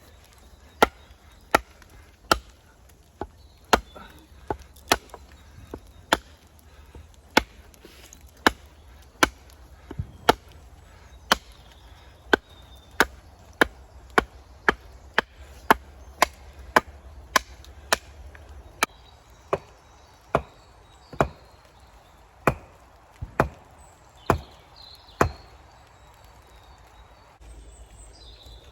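Axe chopping into a log, a long run of evenly paced blows a little over one a second, stopping a few seconds before the end.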